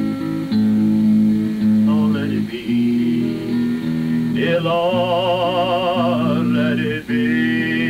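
Acoustic guitar strumming a hymn's chords. A solo voice sings over it, and from about halfway holds a long wavering note with heavy vibrato that slides upward near the end.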